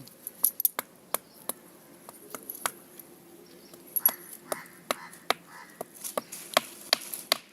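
Sharp, irregular clicks and knocks, about two or three a second, with faint voices in the background in the middle.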